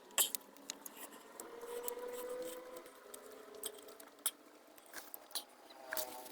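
Eating sounds: scattered short clicks and smacks as a plate of biryani is eaten quickly, with a faint drawn-out hum from about one and a half to three seconds in.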